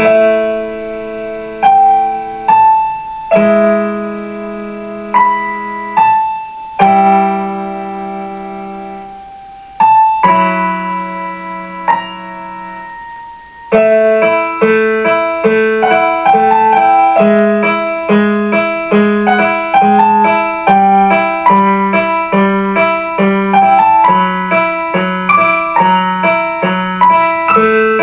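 Solo piano music: slow chords struck and left to ring for about half the time, then a quicker, even pattern of repeated broken chords.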